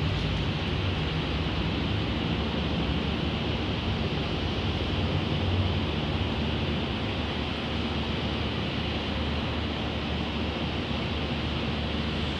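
Steady downtown city ambience: a constant wash of distant traffic noise with a low, unbroken hum underneath.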